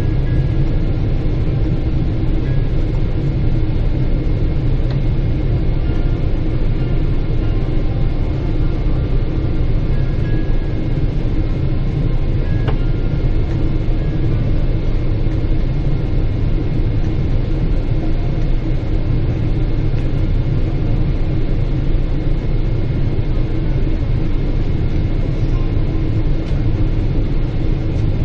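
Steady low rumble of a Boeing 777-300ER's cabin in flight, the engines and rushing air heard from a window seat.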